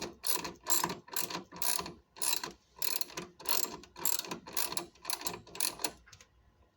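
Hand ratchet wrench clicking in repeated strokes, about two a second, as a bolt is driven in; the bolt is pushing against its clip rather than biting into the threads. The clicking stops near the end.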